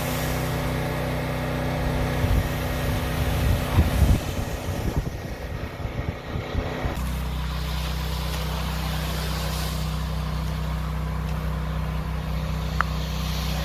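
Gas pressure washer engine running steadily, drawn out as a rough, even drone. An uneven low rumble rides over it from about two seconds in, and the engine's tone changes at about seven seconds.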